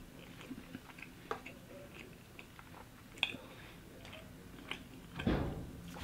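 Faint chewing of food, with scattered small mouth clicks and smacks. A brief louder handling noise comes about five seconds in.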